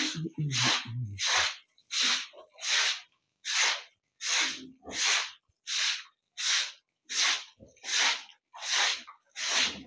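Broom sweeping a wet concrete pig-pen floor in a steady rhythm of swishing strokes, about four every three seconds, while the pen is being cleaned.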